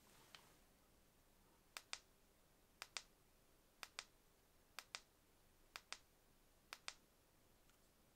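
A run of six sharp double clicks, evenly spaced about one a second.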